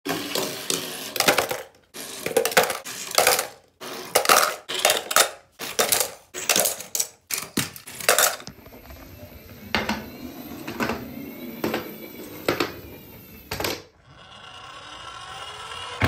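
Small die-cast toy cars clattering and knocking as they slide down a wooden slide and drop into a plastic bucket and a frog-shaped container. A dense run of sharp clattering knocks fills about the first eight seconds, then fewer, spaced knocks follow.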